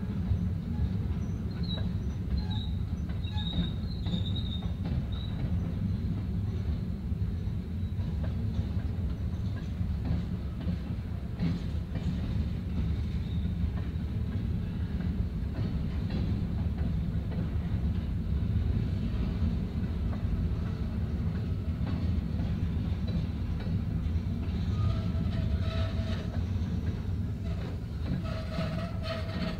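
Covered hopper cars of a freight train rolling past at low speed: a steady low rumble of steel wheels on the rails, with brief high-pitched wheel squeals in the first few seconds.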